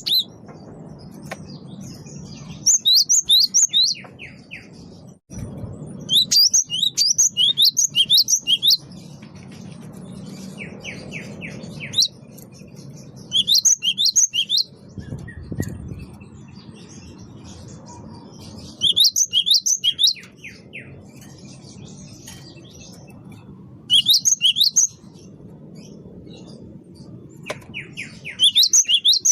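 Cinereous tit (gelatik batu) singing: phrases of rapid, high repeated notes, each lasting a second or two and coming every few seconds, over a low steady hum.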